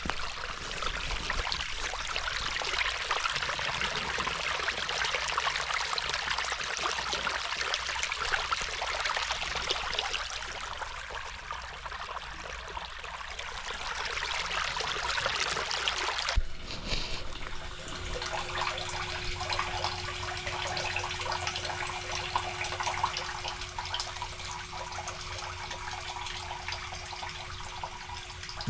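Cesspool wastewater, pumped out by a fecal pump, gushing from the open end of a layflat discharge hose and running along a channel in the soil. About 16 seconds in the sound changes suddenly to a quieter flow of water with a steady hum.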